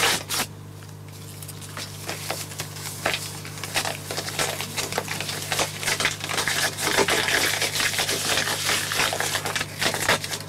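Dense, irregular crackling and clicking, like something being crumpled or rustled close to a microphone, growing busier about halfway through and stopping abruptly near the end, over a steady low hum.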